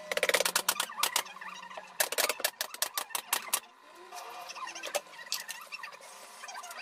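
Pneumatic upholstery staple gun firing staples through fabric into a furniture frame. Quick runs of sharp clicks come in the first half, then only a few single shots.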